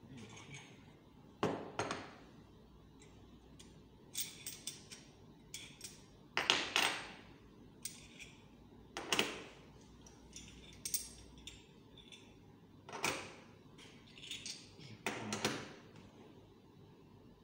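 Slotted metal weights clinking against each other and against a metal weight hanger as they are stacked on and handled, with a dozen or so irregular sharp clinks and knocks.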